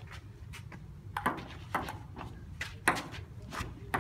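Table tennis ball being hit back and forth in a rally: several sharp clicks of the ball on paddles and table at uneven intervals.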